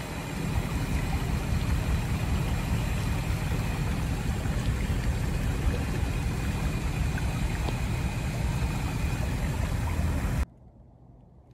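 Floodwater pouring into a pond's overflow drain under a wire-cage grate: a steady rushing noise with a deep rumble. It cuts off abruptly about ten seconds in.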